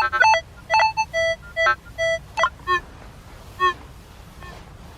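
Background music: a bouncy tune made of short, separate notes at changing pitches.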